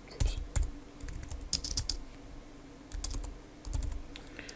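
Typing on a computer keyboard: a few quick runs of keystrokes with short pauses between them.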